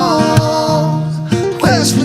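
A song with singing over acoustic guitar: a voice holds one long note, then starts a new phrase near the end.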